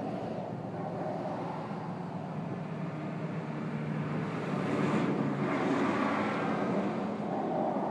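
Steady engine hum of passing motor traffic that swells about halfway through and eases off toward the end.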